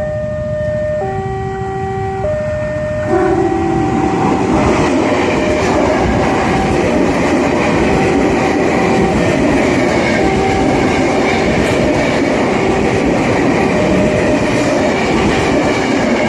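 Railroad crossing alarm sounding its alternating two-tone signal, the two pitches swapping about once a second. From about three seconds in, an electric commuter train passes close by and its steady rumble becomes the loudest sound, with the alarm still going underneath.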